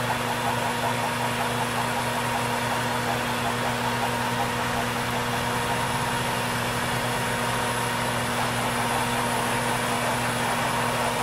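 Metal lathe spinning at 320 RPM with a steady hum and even hiss as a hand-fed, half-inch-wide high-speed steel form tool cuts a wide undercut in 316 stainless steel. The cut runs smoothly without chatter, the sign of a tool relieved in the center.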